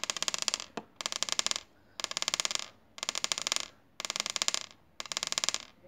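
Button vibration motor buzzing in pulses about once a second, each burst a little over half a second long, as it is switched on and off by a 1 Hz signal from a PC's headphone jack.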